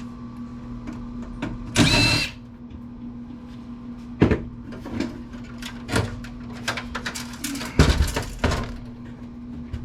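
A cordless drill/driver runs briefly, about two seconds in, backing out a screw from the computer's case, followed by scattered clicks and knocks of metal parts and screws being handled. A steady low hum runs underneath.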